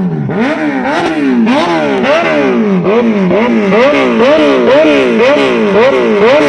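Kawasaki Z900's inline-four engine revved hard in quick repeated throttle blips, the pitch climbing and falling about twice a second.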